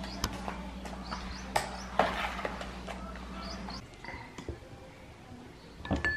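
Flat mop being pushed across a tiled floor, with a few sharp knocks, over a steady low hum. The hum stops about four seconds in, leaving quieter small clicks and a brief sharper sound near the end.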